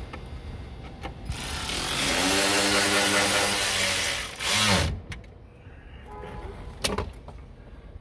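A loud motor-driven machine runs for about three seconds, then its pitch falls as it winds down and stops abruptly. A couple of sharp knocks follow.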